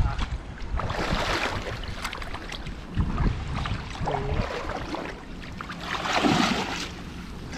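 Water splashing and sloshing, with two louder splashes about a second in and about six seconds in, and wind buffeting the microphone.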